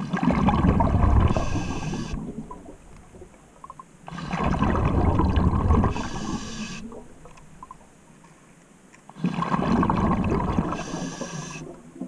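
Scuba diver breathing through a regulator underwater: three long exhalations, each a rumble of bubbles ending in a brief higher fizz, about every four to five seconds.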